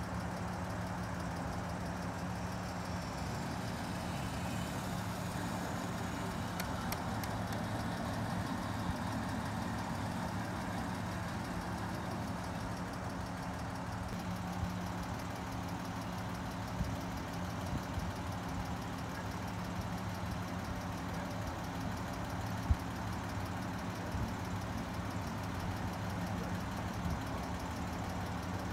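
Steady mechanical hum of a 1950 Studebaker Champion convertible as its power top folds down, with occasional light clicks and one sharper click about 23 seconds in.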